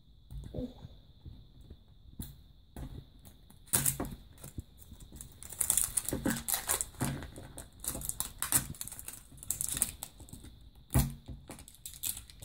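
Plastic wrapping crinkling and tearing as it is peeled off a plastic surprise-toy capsule, with irregular rapid clicks and rustles. The handling is sparse at first and gets busier from about four seconds in.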